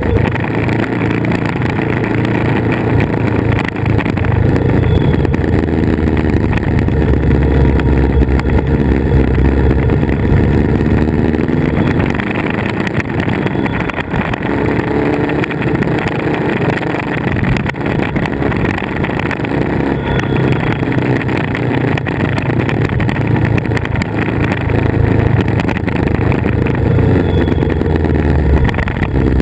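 Motorcycle engine running under way, its note rising and falling a little, mixed with steady wind rush over the bike-mounted camera.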